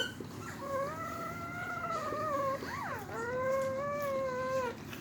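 Newborn German Shepherd puppy crying: two long, steady cries with a brief squeak between them.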